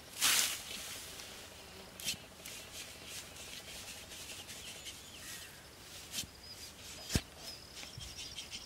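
Dry grass and straw rustling and crackling as a heap is pulled apart by hand. A loud swishing rustle comes right at the start, with a few sharp clicks later on.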